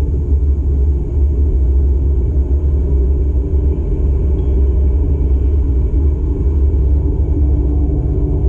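Steady low rumble of a car heard from inside the cabin while driving: engine and road noise.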